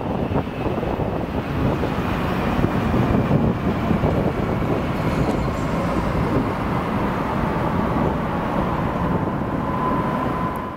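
EG2Tv "Ivolga" electric multiple unit running away down the track: a steady rumble of wheels on rail, with a faint whine that slowly falls in pitch.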